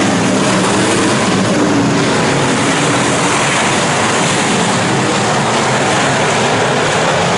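A field of IMCA Northern SportMod race cars' V8 engines running hard on a dirt oval: a loud, steady blend of engine noise, with engine pitches rising and falling as the cars pass.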